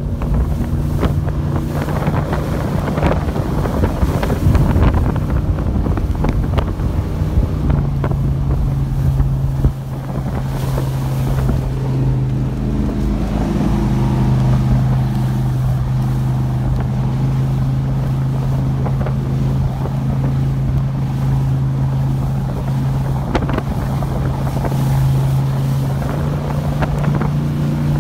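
Powerboat engine running steadily at speed, its pitch stepping slightly a few times, with wind buffeting the microphone and the hull knocking through choppy water.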